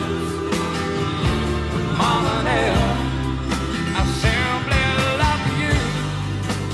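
Background music: a song with a sung vocal over bass and drums.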